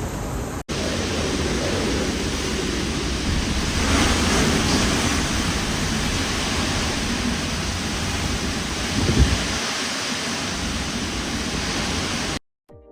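Typhoon wind and driving rain, a loud steady rush of noise with wind buffeting the microphone and a sharp low thump about nine seconds in. It cuts off abruptly just before the end.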